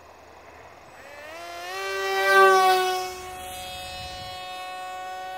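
The brushless electric motor and propeller of a foam-board RC F-22 whine as the plane makes a low pass. The pitch climbs as it comes in and is loudest about two and a half seconds in. It then drops a little as the plane goes by and carries on steadily.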